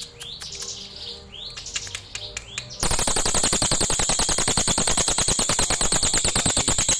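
Crested jay (cililin) calling: a few short whistled notes mixed with sharp clicks, then about three seconds in a sudden switch to a loud, rapid, continuous rattle.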